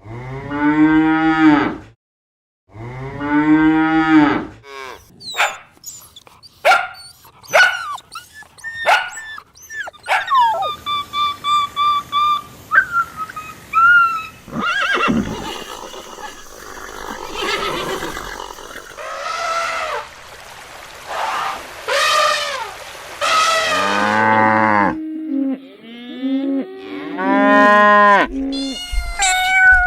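A series of different animal calls, one after another. It opens with two long cattle moos in the first four seconds, followed by clicks, a steady high call and several other animal cries.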